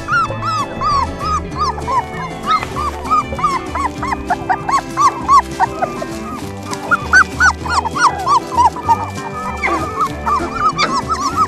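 Young puppies whining in short, high cries that rise and fall, several a second. Background music with a steady low beat plays underneath.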